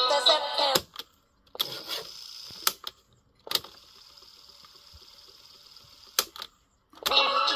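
Control buttons of a Panasonic RQ-L309 mini cassette recorder clicking as they are pressed, with the faint whir of its tape mechanism running between clicks. Music played from the tape cuts off under a second in and starts again near the end.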